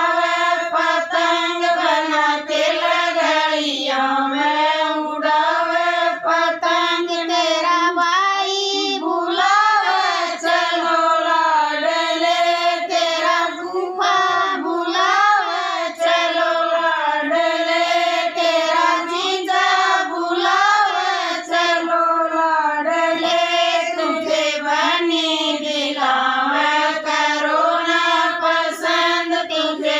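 A group of women singing a Haryanvi folk wedding song (sangeet geet) together in unison, unaccompanied, in a continuous melodic line broken only by short breaths.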